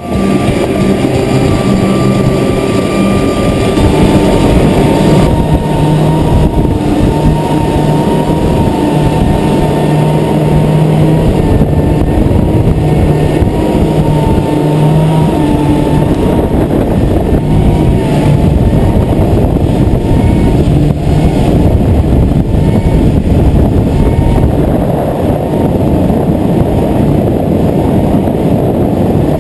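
Boat's triple outboard motors running steadily at speed, a constant engine drone with a wavering whine, mixed with rushing wind and water noise from the wake.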